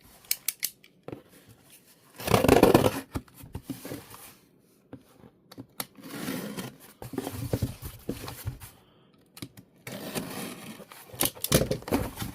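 Camera packaging being torn open and handled by hand: scattered clicks and rustles, with the loudest tear lasting about a second, about two seconds in, and more handling later on.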